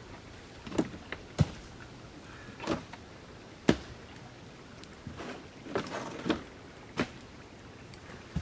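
Firewood logs knocking against each other and against a plastic tub as they are handled and set in, a series of sharp irregular knocks and clunks.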